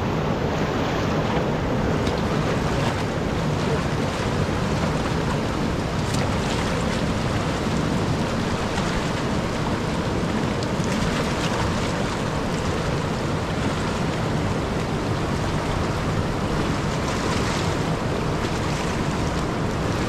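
Fast, turbulent river water rushing steadily.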